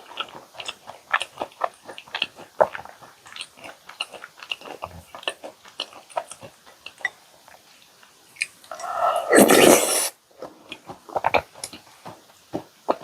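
Close-miked chewing of chocolate chip cookies dunked in milk: many short mouth clicks and small crunches. About nine seconds in, a louder, noisy burst lasts about a second.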